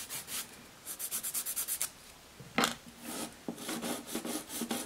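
Hand nail file rubbing back and forth over the edges of artificial full-cover tip nails in quick short strokes, about ten a second, in bursts with brief pauses. A single sharper knock comes about two and a half seconds in.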